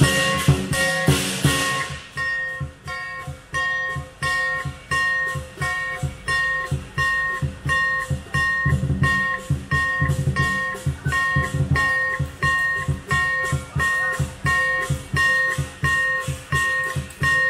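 Lion-dance percussion ensemble playing: a large lion drum beating rapidly under a ringing gong and cymbals struck in a steady pulse of about two strokes a second. The cymbals clash heavily for the first couple of seconds, then drop back to a lighter beat.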